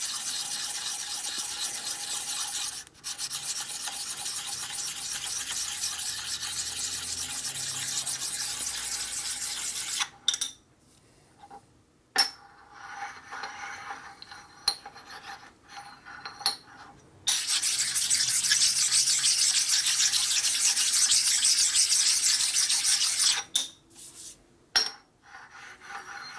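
Honing stone rubbed back and forth over a metal part to knock down high spots and burrs: a steady rasping scrape for about ten seconds, then a few light metal clinks, then a second long stretch of scraping, with more clinks near the end.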